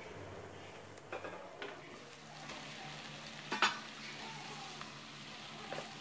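Eggplant and tomato pieces frying in a nonstick pan and being stirred with a spatula: a low, steady sizzle with scattered scrapes and clicks of the spatula on the pan, the loudest knock a little past halfway.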